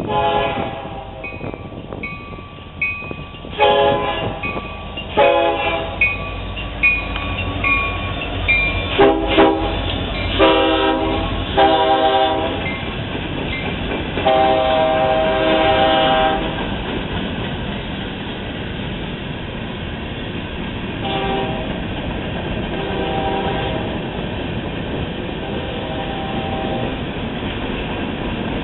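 Diesel freight train led by EMD SD70M-2 locomotives passing, sounding its multi-tone air horn in a series of blasts, the longest lasting about two seconds, with fainter blasts later as it moves off. A grade-crossing bell rings steadily in the first few seconds. The locomotives' engines rumble by, then the hopper cars roll past.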